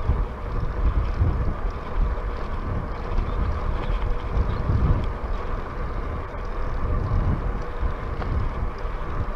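Wind buffeting the microphone on a moving bicycle: an uneven, gusty low rumble, with a faint steady hum underneath.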